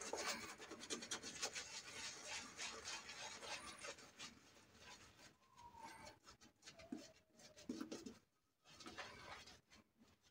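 Silvertip badger shaving brush scrubbing lather over the face and beard stubble: a rapid, bristly rubbing, brisk for the first few seconds, then sparser and fainter strokes.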